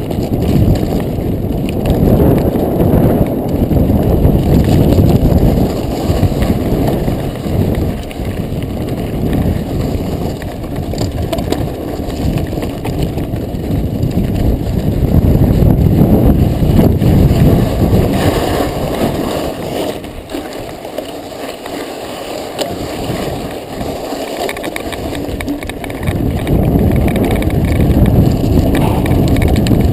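Wind rumbling on the microphone of a handlebar-mounted camera on a mountain bike, mixed with the bike rattling over a rough, rocky trail. The rumble eases for a few seconds about two-thirds of the way through, then comes back.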